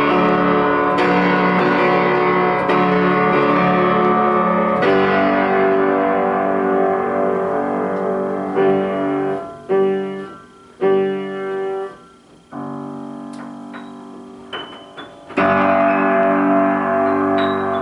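Piano or electric keyboard music played as chords, which stops and restarts abruptly several times past the middle. A quieter passage with a few high single notes follows, then full chords return near the end.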